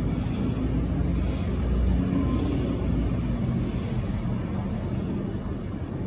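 Steady low rumble of background noise, unbroken and even in loudness.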